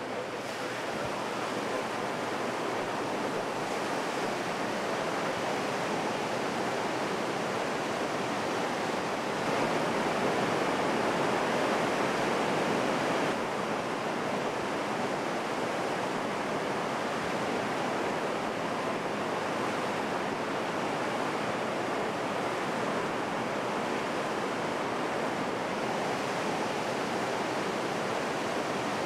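Seawater gushing through the flooding culverts in a dry dock's walls as the dock is flooded, a steady rush of water that swells louder for a few seconds about a third of the way in.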